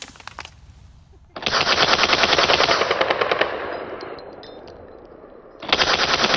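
Suppressed full-auto Ruger 10/22 open-bolt conversion (Aklys Defense ZK-22) firing .22 LR in two long bursts, a fast even rattle at about 2,000 rounds a minute. The first burst starts about a second and a half in and lasts about two seconds. The second starts near the end.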